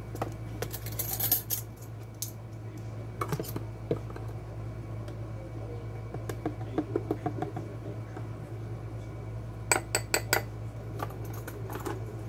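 Metal measuring spoons clinking and tapping against a plastic spice jar and a small glass bowl as spice is scooped out and tipped in, with scattered clicks from the jar lid. The sharpest run of clicks comes about ten seconds in.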